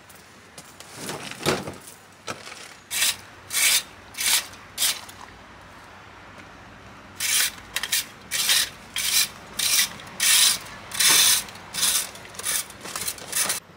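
Plastic fan rake scraping over a soil path in short strokes: quieter rustling first, then four strokes, a pause, and a quicker run of about ten more.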